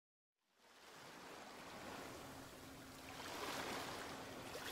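Rushing ocean water and waves, fading in from silence in the first second and swelling a little about three seconds in.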